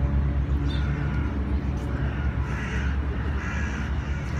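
Crows cawing a few times, each caw about half a second long, over a steady low rumble.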